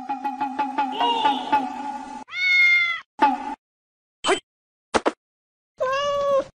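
A white cat meowing: a pulsing, wavering call for about two seconds, then a series of separate meows, a long loud one, several short ones, and another long one near the end.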